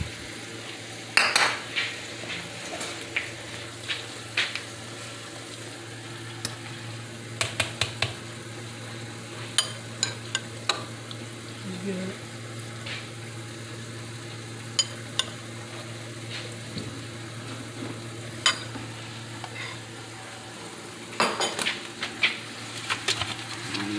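Macaroni and cheese being spooned from a bowl into a foil baking pan: scattered sharp clinks and scrapes of a utensil against the bowl and pan, over a steady low hum.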